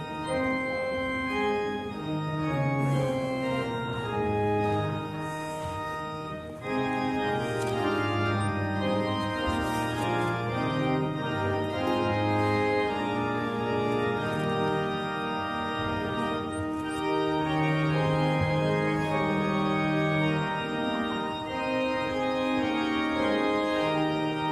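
Church organ playing slow music in sustained chords, the notes held and changing every second or so.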